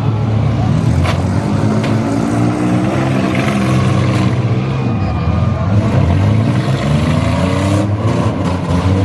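Several minivan engines in a demolition derby revving, their pitch rising and falling, with a few sharp bangs about a second in and again near the end.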